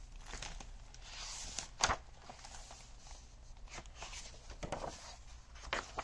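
Hardcover book being opened and its paper pages turned: soft rustles and light clicks, with one sharp knock about two seconds in.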